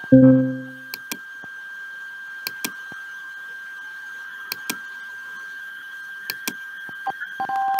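A short low synthesized tone at the start, then a steady high-pitched electronic whine with scattered soft clicks. About seven seconds in, a new pitched alarm tone begins with a few short beeps.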